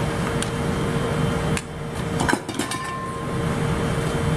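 A metal spoon stirring and scraping a flour batter in a stainless steel mixing bowl. A few sharp clinks of spoon on bowl come about two to three seconds in, over a steady background hum that cuts out about one and a half seconds in.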